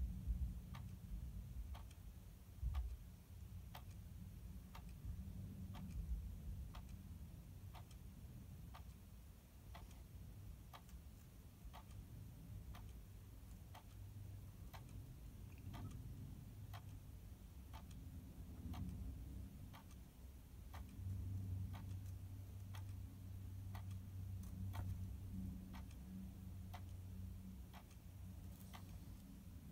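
Faint, steady ticking, about two ticks a second, over a low rumble that swells for a few seconds past the middle.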